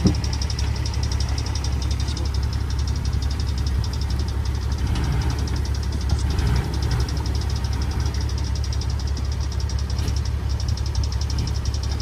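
Diesel engine of a small crawler bulldozer running with a steady, low, even drone, with a single sharp knock right at the start.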